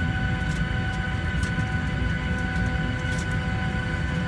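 Steady cabin noise inside a Boeing 737-900ER on the ground during pushback: a low rumble with a steady high-pitched whine over it.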